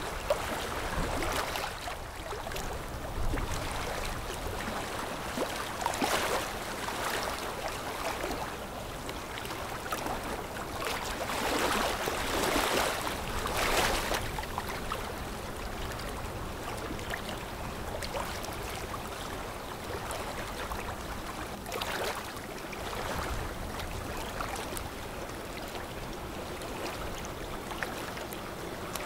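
River water washing and splashing, stirred up by a passing container ship's bow wave, swelling in surges every few seconds.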